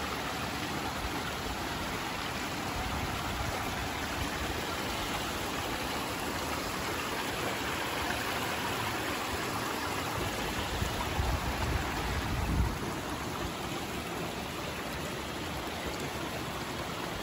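Shallow mountain stream running steadily over rocks and pebbles. About two-thirds of the way through, a short low rumble ends in a single bump.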